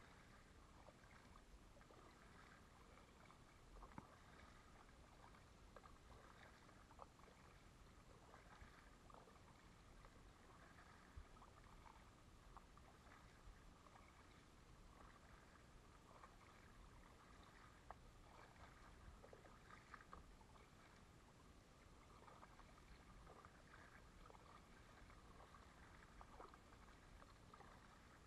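Near silence, with faint irregular splashes and drips of a kayak paddle dipping into calm water.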